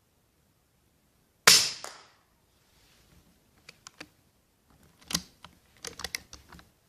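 One sharp shot from a Kalibrgun Cricket 5.5 mm PCP air rifle about a second and a half in, fading quickly, followed by a scatter of much quieter short mechanical clicks and knocks.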